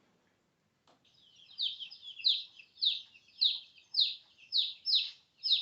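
Chick peeping: a steady run of short, high, falling peeps, about two a second, beginning about a second and a half in.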